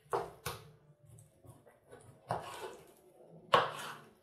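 Kitchen knife cutting raw pork into chunks on a wooden cutting board. Four knocks of the blade on the board, two quick ones just after the start and the loudest near the end.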